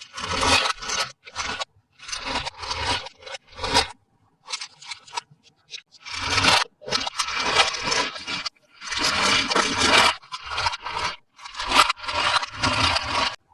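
Toy packaging being handled for unboxing: repeated scraping and rubbing in short bursts, with brief silent gaps between them.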